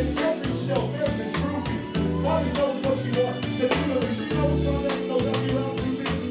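Hip-hop beat played loud at a live rap show, with deep bass notes and a steady drum pattern.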